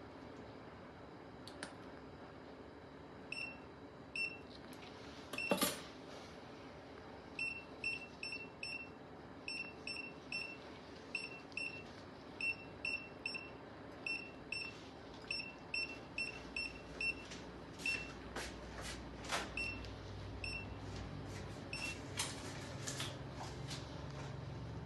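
Surgical patient monitor beeping: short, high electronic beeps repeating about three times a second in runs with pauses, alongside a few sharp clinks of metal surgical instruments. A low hum comes in about two-thirds of the way through.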